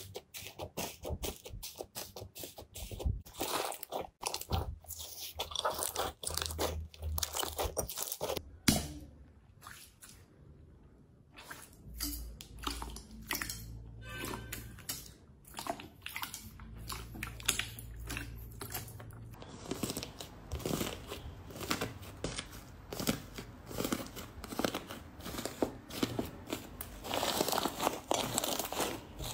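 Hands pressing and kneading slime: a dense run of crackles and pops as pink slime full of foam beads is pressed, easing to a quieter stretch in the middle, then more crackling and squishing as a fluffy slime is squeezed near the end.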